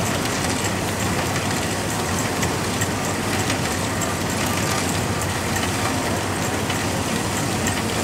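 Threshing machine running under load, belt-driven from a steam traction engine, while sheaves are fed in: a steady, even mechanical din.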